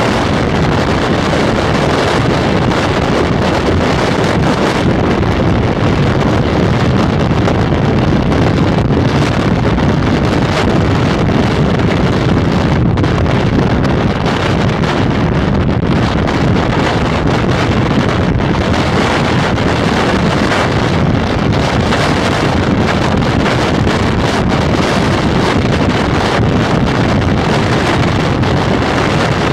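Steady wind roar buffeting the microphone of a motorcycle cruising at motorway speed, with road noise underneath.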